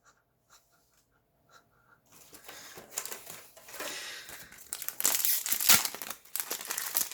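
Foil Yu-Gi-Oh booster pack wrapper being torn open and crumpled: a few faint clicks at first, then continuous crinkling from about two seconds in, loudest near the end.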